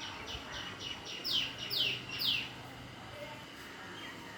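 A bird singing a run of quick, high notes, each falling in pitch, about eight in the first two and a half seconds, the last three louder and longer.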